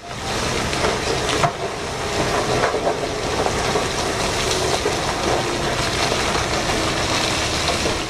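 A load of rock pouring off the tipped bed of a giant mining dump truck: a steady, dense noise of tumbling rock and gravel.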